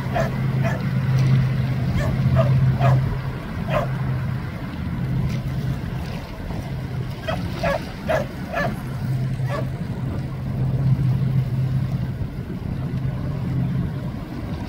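A boat engine runs with a steady low drone. Short barks come over it in runs of three to five: near the start, and again about halfway through.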